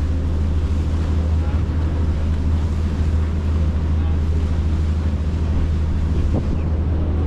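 Tour boat's engines running steadily under way with a constant low drone, mixed with wind buffeting the microphone and the rush of water.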